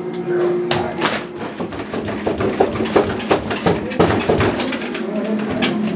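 A quick, irregular run of knocks and clicks, several a second, over a low steady hum.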